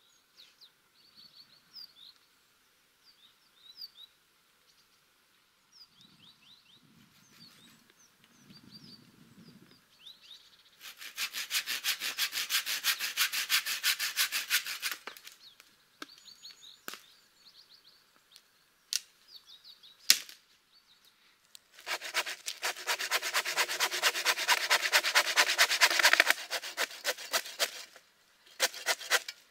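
Hand saw cutting through green pine wood in quick, even back-and-forth strokes, in two spells of about four seconds each. Small birds chirp faintly before the first spell, and a few sharp knocks come between the two.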